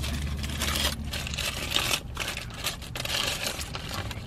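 Paper burger wrapper crinkling and rustling as it is handled and opened.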